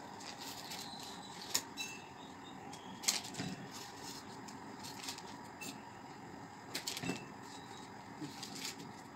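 Steady room hum with a few sharp clicks and knocks, the loudest about a second and a half in, about three seconds in, and twice close together near seven seconds, from handling things on a workbench.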